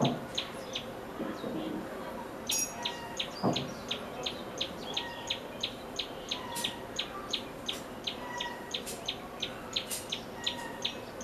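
Common tailorbird singing: a long run of short, sharp, high notes repeated about three times a second. A single low thump about three and a half seconds in.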